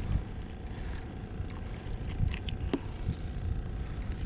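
Strong wind rumbling on the microphone and water slapping against an inflatable boat drifting on open sea, with a few light clicks.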